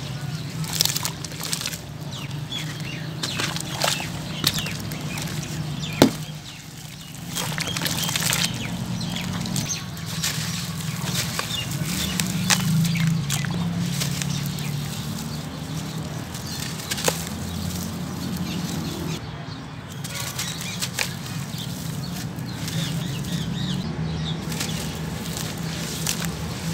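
Lumps of sand cement crumbled and squeezed by bare hands in a basin of muddy water: wet, gritty crunching and squelching with sloshing and many small crackles. A single sharp click stands out about six seconds in.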